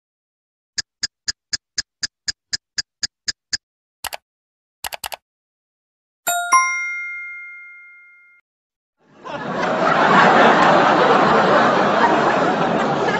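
A run of stock sound effects. First a clock ticking about four times a second, then a few sharp computer-mouse clicks. Then a bright correct-answer ding that rings out and fades, and from about nine seconds in a crowd laughing.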